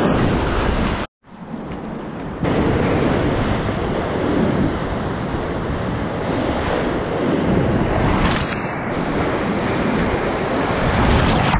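Whitewater rapids rushing and splashing around a kayak, heard close up from the paddler's camera, with water and wind buffeting the microphone. The sound cuts out briefly about a second in, comes back quieter, and is louder again from about two and a half seconds.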